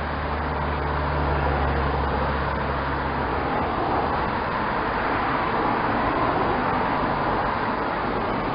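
Cycling team support cars passing close by one after another, their tyre and engine noise swelling and fading as each goes past. A low engine hum stands out for the first few seconds.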